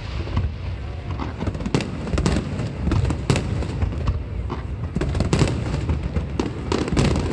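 Fireworks display going off, with a rapid run of sharp cracks and bangs over a continuous low rumble.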